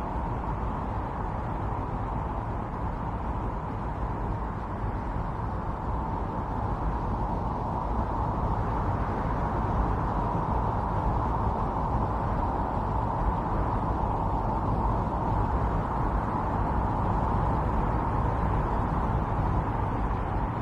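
Strong wind blowing steadily in a snowstorm, an unbroken rushing noise that grows a little louder about a third of the way in.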